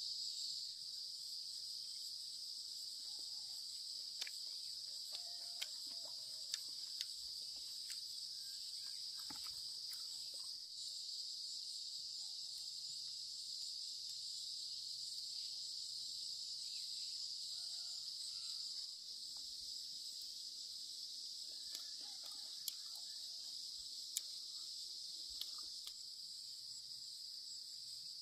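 A steady, high-pitched chorus of insects, crickets or cicadas, droning without a break. A few sharp light clicks fall a few seconds in and again past the middle.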